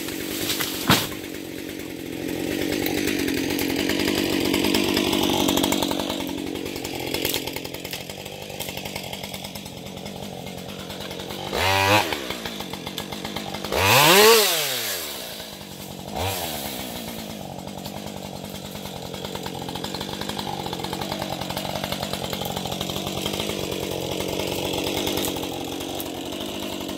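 Husqvarna 550 XP G two-stroke chainsaw running at idle, revved up and back down a couple of times about halfway through. A single sharp knock comes about a second in.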